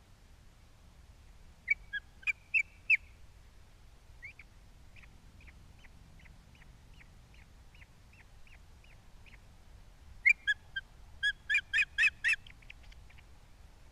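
Osprey calling in sharp, whistled chirps: a loud group of about five about two seconds in, a long run of faint, evenly spaced chirps, then a louder burst of about nine near the end.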